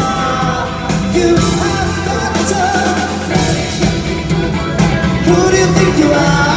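A pop song playing, with a singing voice over a backing band.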